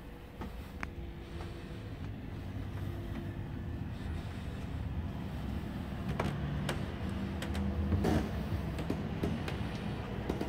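Steady low rumble and hum of room noise, with a handful of sharp clicks and knocks in the second half.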